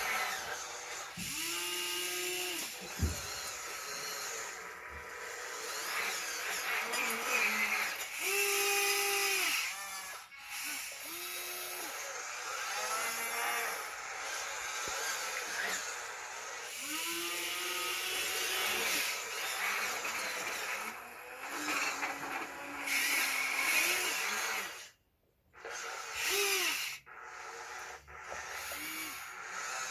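Small electric motors of RC construction machines whining in repeated bursts of one to two seconds, each rising in pitch as it starts and falling as it stops, over a steady hiss. The sound cuts out briefly about 25 seconds in.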